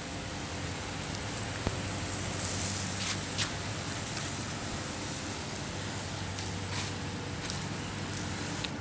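Steady hiss of deck cleaner being sprayed from a sprayer onto wooden deck boards, with a faint low hum underneath.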